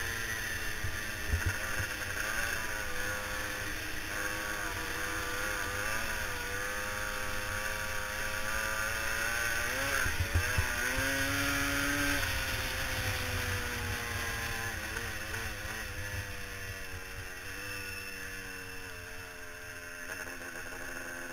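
Engine of an off-road race vehicle running hard, its pitch rising and falling with the throttle, with rushing noise over it. There are sharp knocks about a second in and about ten seconds in. The engine note slowly drops in the later part.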